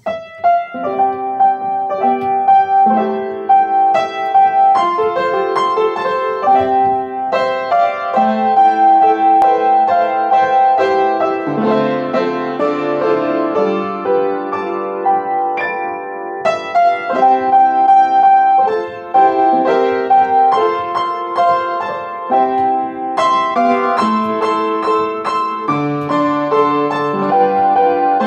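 Upright piano played solo: a melody over held chords, continuing without a break.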